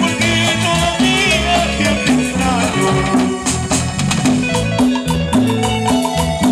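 Live tropical cumbia band playing: a steady bass line and percussion under a bright lead melody, with quick repeated short notes in the second half.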